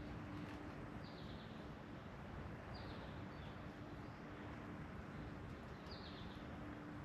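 A songbird repeating a short, high, falling chirp every second or two, over a steady outdoor hiss and a faint low steady hum.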